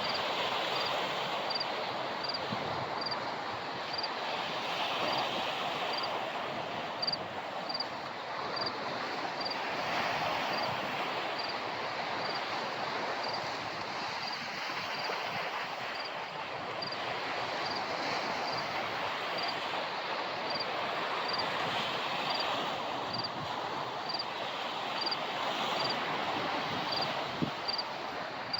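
Sea surf washing in at high tide: a steady rushing that swells and eases every few seconds. A faint high tick repeats about once a second throughout.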